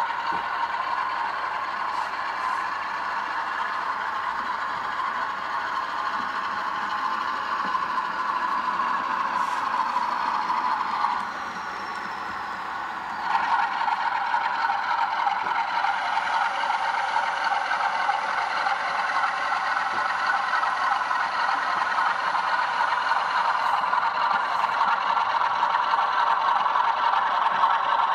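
Model train running on the layout: a steady motor whir with the wheels rattling and clattering over the track. It dips for a couple of seconds about eleven seconds in, then carries on.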